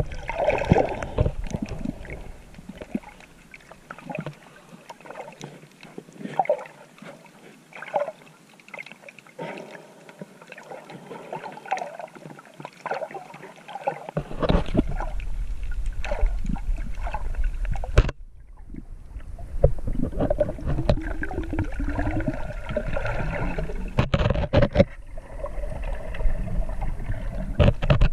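Water sloshing and bubbling against a GoPro camera filming underwater while snorkeling, with irregular clicks and knocks. About halfway through a louder low rumble sets in, cutting out briefly a few seconds later before returning.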